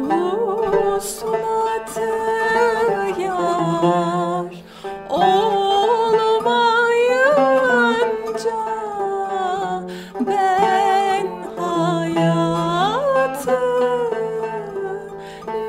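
Solo female voice singing a Turkish classical song in makam Kürdilihicazkâr, in long ornamented lines with wide vibrato and sliding pitch, over a plucked tanbur. The melody breaks briefly twice, about five and ten seconds in, and the line glides up near the end.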